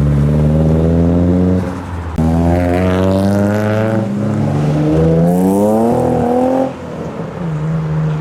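Car engine accelerating hard, its pitch climbing with a short drop in level about two seconds in, then falling away near the end.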